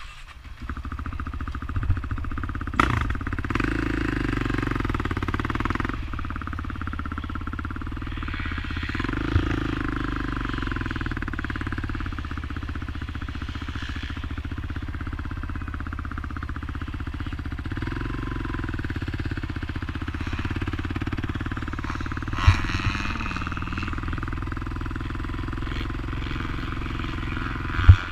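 Honda TRX450ER quad's single-cylinder four-stroke engine running steadily while being ridden, with a few sharp knocks about three seconds in, again late on, and at the very end.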